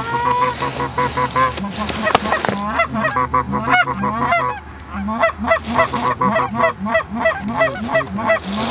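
Canada goose honks and clucks, quick and overlapping, several voices at once, as a flock is called in to a decoy spread. A single sharp knock sounds about two seconds in.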